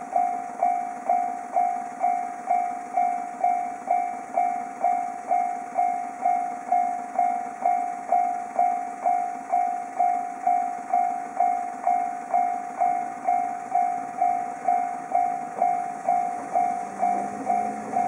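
Japanese level-crossing warning bell ringing over and over, about two strikes a second, warning of an approaching train. Near the end the low hum of the approaching Choshi Electric Railway train comes in under it.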